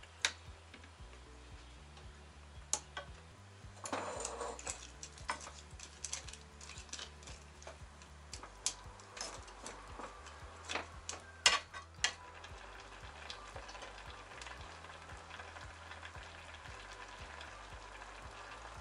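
A wooden spatula stirs chunks of winter melon in syrup in a metal pan, with scraping and sharp clicks against the pan, the loudest just before the stirring stops. Then the syrup simmers with a steady soft bubbling hiss.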